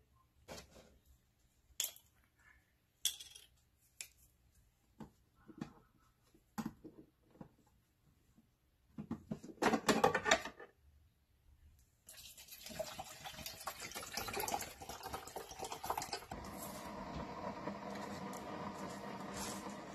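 Scattered clicks and knocks as a single-serve pod coffee brewer is handled, then a short splashing pour of water from a plastic bottle about halfway through. From about twelve seconds the brewer runs with a steady hum and hiss as it heats the water.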